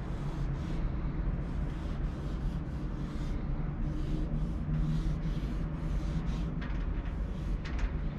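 Wide-tip paint marker rubbing across a smooth painted panel in short scratchy strokes, one after another, with a few sharp ticks near the end. A steady low rumble lies under it.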